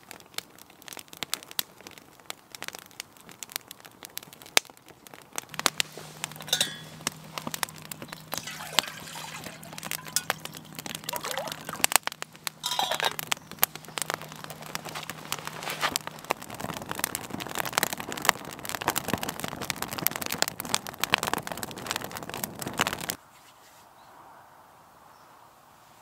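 Split-wood campfire crackling and popping with many sharp snaps. It cuts off suddenly near the end to a quiet outdoor background.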